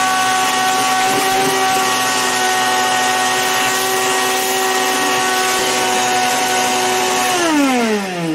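Shop vacuum running with a steady whine as its hose nozzle sucks old battery-corrosion debris out of a car's battery well. Near the end it is switched off and the motor winds down, its pitch falling.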